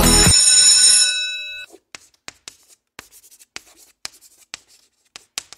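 A song cuts off at the start and a bell-like chime rings out and fades over the first second or so. Then chalk taps and scratches on a blackboard in short, irregular strokes, as words are written.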